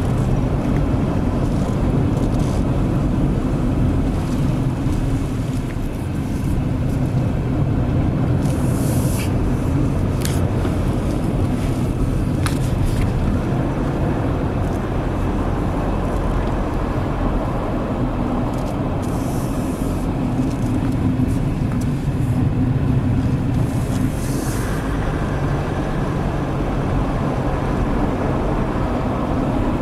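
Car engine and tyre noise heard from inside the cabin while driving: a steady low drone with a few brief higher hisses.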